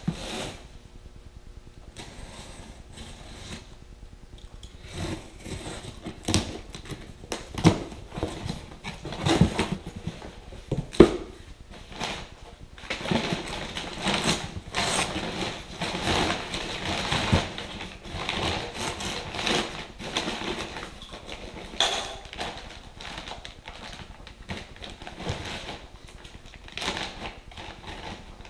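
A cardboard shipping box being opened by hand, with crumpled kraft packing paper rustling and crackling as it is pulled out, and plastic parts bags crinkling. Irregular light knocks and clicks run throughout, and the rustling is busiest midway.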